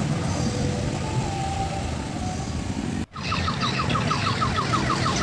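Odong-odong minibus engines running on a village road. After a sudden cut about three seconds in, a rapid series of short, high electronic beeps, about six a second, from an odong-odong's electronic horn.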